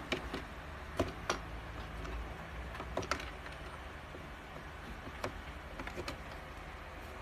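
Tape rolls and hands knocking against the plastic housing of an ED-100 automatic tape dispenser while two rolls are set into its holder: a few sharp clicks, a pair about a second in and another pair about three seconds in, with lighter taps later over a low steady background hum.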